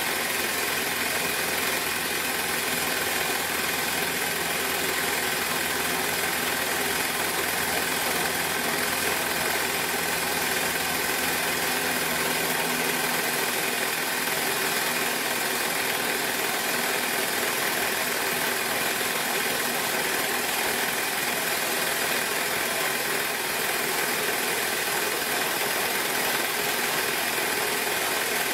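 Bell & Howell Filmo Picture Master 8mm projector running film: a steady whir of its motor and film transport, with a slight extra noise from the newly rubbered idler wheel, which the owner thinks is a little out of round. A low hum underneath drops away about halfway through.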